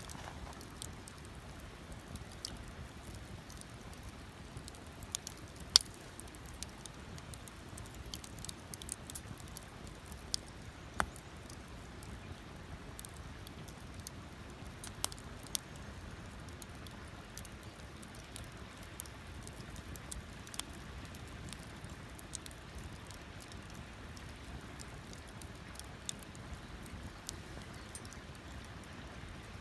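Wood campfire burning, with irregular crackles and a few sharper pops over a faint steady hiss.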